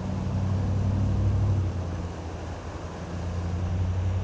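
A steady low engine hum, easing a little midway and swelling again, over the rush of the river's current.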